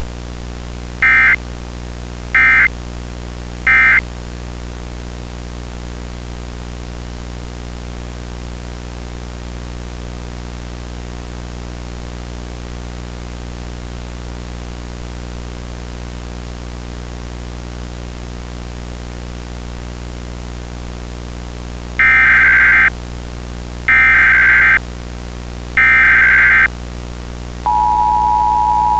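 Emergency Alert System tones: three short bursts of SAME digital data, the end-of-message code closing the alert, then steady hiss with a low hum. About 22 seconds in come three longer data bursts, the header of a new alert. Near the end the two-tone attention signal starts, a steady dual tone.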